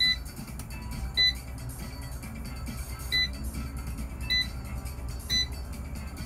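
Kalite Q10 air fryer oven's control panel beeping five times, short high beeps at uneven intervals as its buttons are pressed.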